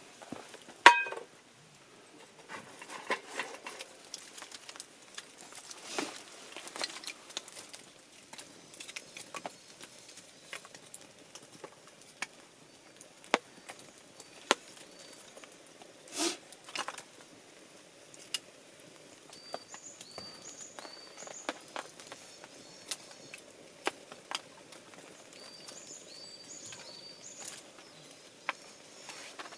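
Scattered clicks and knocks, like things being handled, with a loud clink that rings briefly about a second in. In the second half a small bird gives short, high chirps over and over.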